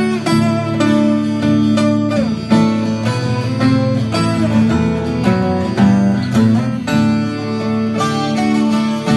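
Twelve-string acoustic guitar playing an instrumental melody, single notes picked over a ringing low bass note, with a few notes bent in pitch.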